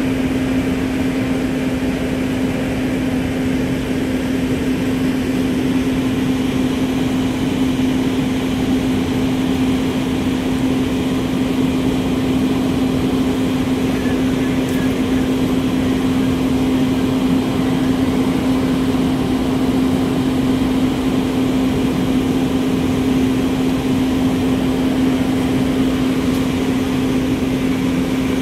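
Fire apparatus engine running steadily: a constant hum over a rushing mechanical noise.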